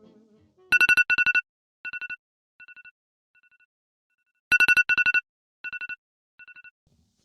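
Telephone ringtone: a fast trilling two-tone ring, heard twice. Each ring repeats several times, quieter each time, like an echo.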